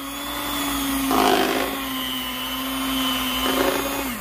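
Electric hand mixer running steadily, its beaters churning chunky cooked potatoes, with two louder noisy spells about a second in and past three seconds. The motor's pitch dips near the end as it bogs under the load.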